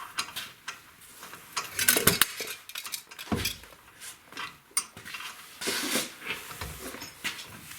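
Irregular metallic clinks, knocks and scraping of tools and brake parts being handled during rear brake caliper reassembly, with the sharpest knocks about two seconds in.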